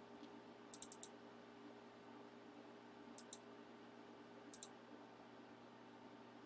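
Near silence: faint room hum with a few sharp, faint clicks in small groups, four about a second in, then two at around three seconds and two more between four and five seconds.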